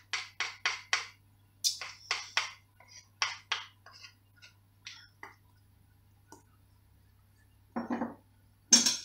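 A metal spoon scraping and tapping cake batter off a wooden spatula, a quick run of short scrapes about three a second that thins out after a few seconds. Near the end the utensils are put down with a knock and a loud clatter.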